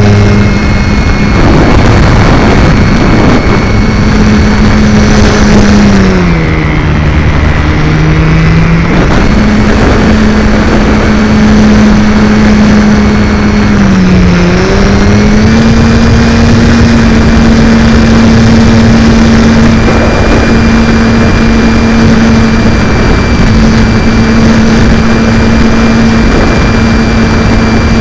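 Brushless electric motor and propeller of a Multiplex FunCub RC plane in flight, heard from an onboard camera: a steady whine with wind rushing over the microphone. The motor slows, pitch dropping, about six seconds in, speeds back up about three seconds later, dips briefly near the middle and then holds steady.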